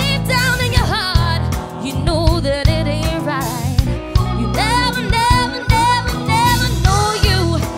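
A live pop band playing a song. A woman sings lead, her held notes wavering with vibrato, over drum kit, electric guitar and bass.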